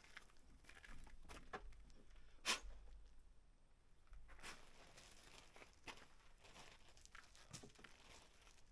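Faint handling noises: light rustling and small scattered clicks, with one sharper click about two and a half seconds in.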